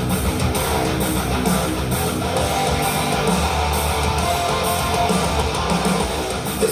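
Guitar-driven music with strummed guitars and bass, played back through a Harman Kardon SoundSticks 4 satellite-and-subwoofer speaker system as a listening test.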